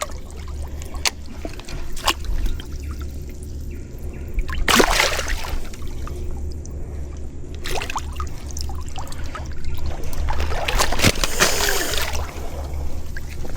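Water trickling and splashing, with two louder splashes about five and eleven seconds in, over a steady low rumble.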